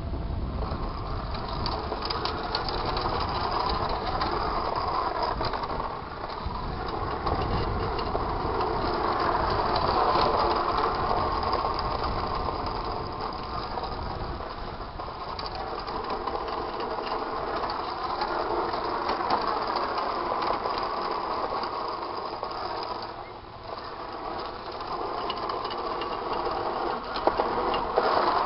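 Electric drive motors of a 12-pound combat robot running as it drives, with a whine that rises and falls as it speeds up and slows, and a scatter of small clicks and rattles.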